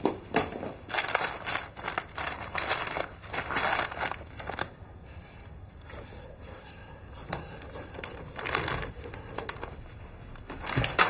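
Crinkling and crackling of a plastic snack wrapper while food is eaten by hand, in dense flurries over the first few seconds, then quieter, with another flurry later and a sharper, louder crackle at the very end.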